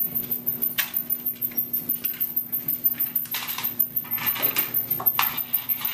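Small plastic toy fire truck clattering and rattling as a toddler pushes it along a hard floor: an irregular run of small clicks and knocks.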